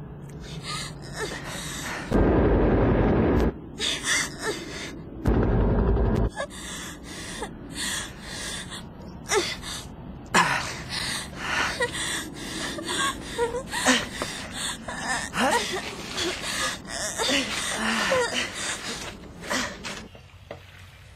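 Strained gasps and whimpers of people struggling to hold a hand over a drop, broken by two loud bursts of low noise, each about a second long. The sound falls quiet near the end.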